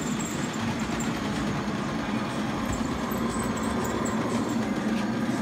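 Model steam locomotive running along its layout track: a steady hum and rumble from its motor and wheels.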